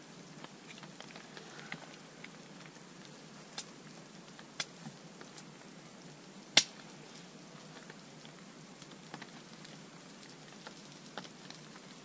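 Small kindling fire of birch bark and dead spruce twigs catching, with scattered sharp crackles and pops over a low steady hiss; one much louder snap comes about halfway through.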